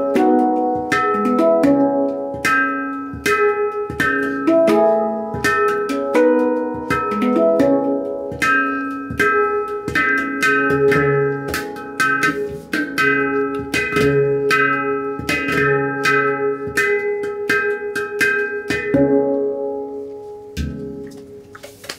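Handpan played with the fingers: quick struck steel notes ringing into one another in a flowing rhythm. The playing thins out about nineteen seconds in, and the last notes ring out and fade.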